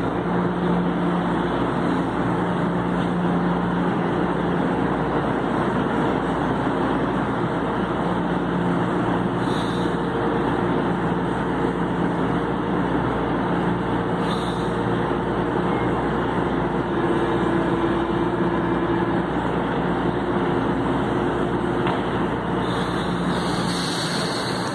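São Paulo Metro train standing at the platform with its onboard equipment running in a steady hum that holds a few low tones. Short high sounds come about ten and fourteen seconds in, and again near the end.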